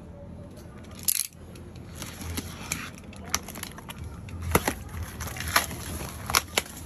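A sharp click about a second in, then a box cutter slicing packing tape on a cardboard box and the flaps being pulled and torn open: a run of irregular crackles and snaps.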